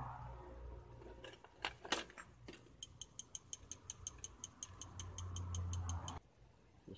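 A few sharp clicks and knocks from small parts being handled, then a rapid, even ticking of about six ticks a second that lasts about three seconds and stops abruptly.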